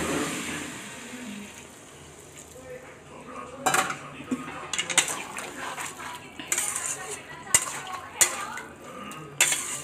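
Water poured into a hot metal kadai of spiced cabbage, hissing briefly at the start. From a few seconds in, a metal spatula stirs the cabbage, scraping and clinking sharply against the pan.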